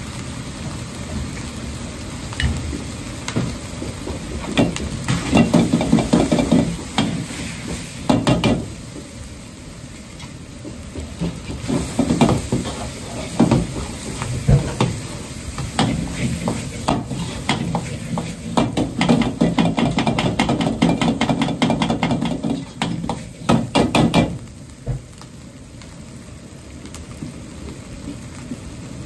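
Ground pork sizzling in a wok while a metal ladle stirs and scrapes it against the pan in quick bouts of clatter. The stirring stops near the end, leaving only the steady sizzle.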